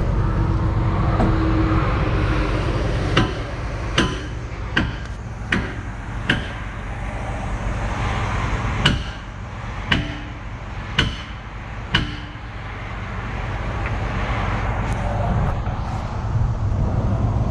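Excavator's diesel engine idling steadily under a string of sharp, ringing metal-on-metal hammer blows, with five strikes a little under a second apart, a pause, then four more about a second apart. The blows come from a large steel pin being driven in to mount a hydraulic thumb on the excavator's stick.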